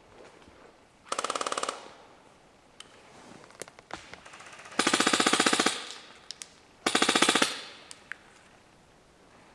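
Airsoft rifle firing three short full-auto bursts, the middle one the longest, with a few faint ticks between them.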